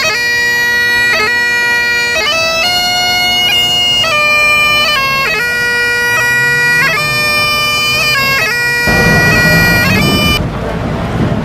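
Bagpipes playing a tune of held notes with quick grace-note flourishes over a steady drone. About nine seconds in, a rumbling noise joins, and the piping cuts off abruptly shortly after.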